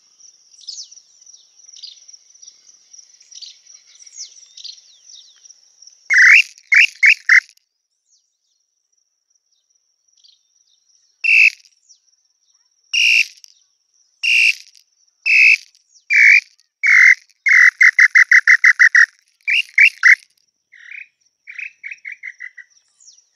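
Wooden tinamou call (pio) blown to imitate the Tataupa tinamou's song: loud whistled notes, first a quick group of four, then spaced single notes that speed up into a rapid run. A fainter run of notes follows near the end. Over everything is a steady high insect drone.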